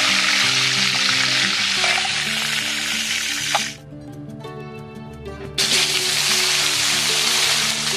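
Hot oil sizzling in a wok as tofu deep-fries, over background music. The sizzle drops out for about two seconds in the middle, then comes back loud as small fish go into the hot oil.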